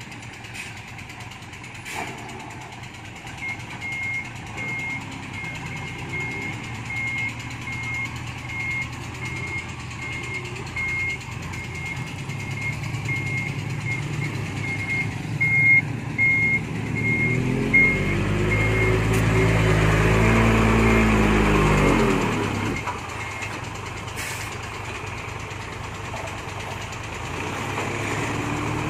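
Diesel dump truck reversing, its backup alarm beeping about once a second over the running engine. Near the end of the beeping the engine revs hard for about five seconds, then drops back to a lower steady run.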